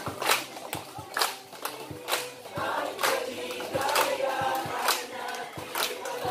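A crowd of children and adults singing together outdoors, with sharp hand claps in time with the song about twice a second.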